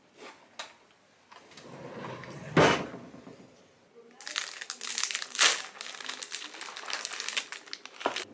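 A few light clicks and one thump as small objects are handled. About four seconds in, a wrapper starts crinkling and crackling steadily as a packet is opened and its contents are taken out.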